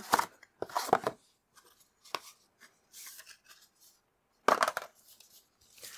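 Cardboard and paper packaging being handled: the inner card and a folded paper manual are lifted out of a mouse's cardboard box. Short scrapes, rustles and taps come with gaps between them, with a sharp tick about two seconds in and the loudest rustle about four and a half seconds in.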